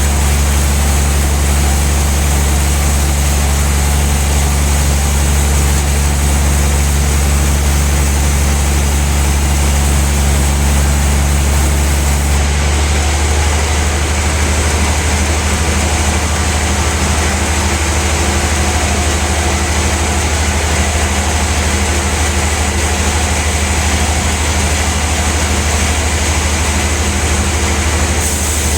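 Sawmill band saw machinery running with a loud, steady low hum; about halfway through the tone shifts and the high hiss drops away.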